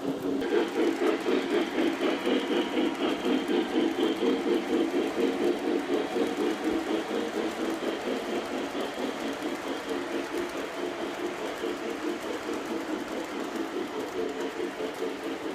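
O scale model train running on track: a steady motor and gear hum with a quick, even clatter of the wheels over the rails.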